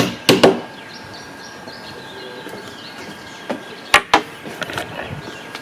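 Birds chirping outdoors, with a few sharp clicks or knocks in two close pairs, one at the very start and another about four seconds in.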